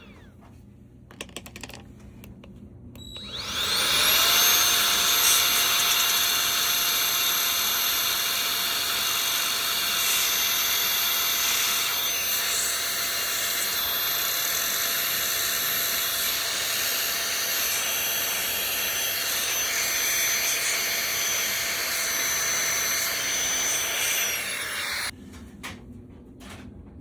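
Electric air blower (dust blower) blowing dust out of computer parts and fans. Its motor spins up with a rising whine about three seconds in, runs steadily and loudly over a rush of air, then cuts off a couple of seconds before the end. A few light clicks of handling come before it starts.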